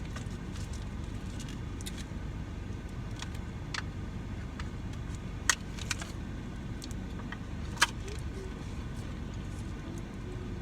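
Steady rush of blowing air, really loud and low, from the air blowing into the room. Scattered small clicks over it, two of them sharper and louder, about halfway and about three-quarters of the way through.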